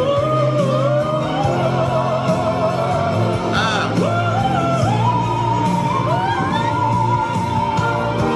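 Male singer's live vocal holding long, high notes with vibrato over orchestral backing, the held note stepping higher about five seconds in.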